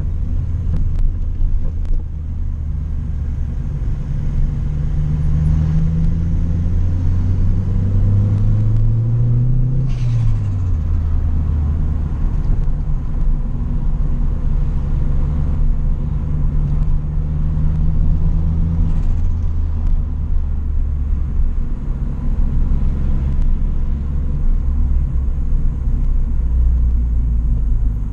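Toyota Corolla's turbocharged 4E-FE four-cylinder heard from inside the car, climbing in revs under acceleration. About ten seconds in the throttle closes and the revs drop, with a brief hiss of turbo flutter. It then cruises steadily, and lifts off again with a fainter hiss near the end.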